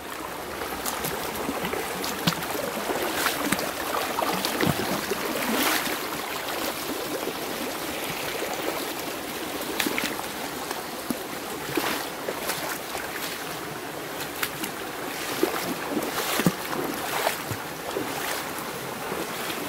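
Steady rush of water in a rocky forest stream, with irregular knocks and splashes scattered throughout.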